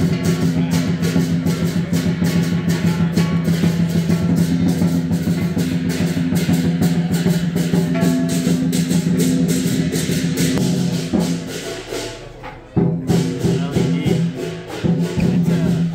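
Music with a fast, steady percussion beat over sustained low notes. It drops away briefly about 12 seconds in, then comes back.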